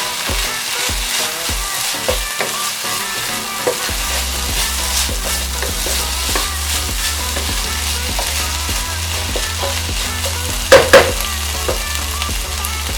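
Spiced vegetables (carrot, zucchini, eggplant and cauliflower) sizzling in a pan while being stirred, with the spoon scraping repeatedly. Two sharp knocks close together about eleven seconds in.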